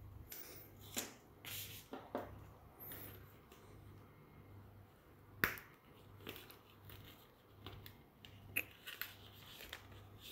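Hands handling a small leather camera-flash case: soft rustling and scattered light clicks. A sharp click about five and a half seconds in, as the case's press-stud flap comes open, is the loudest sound.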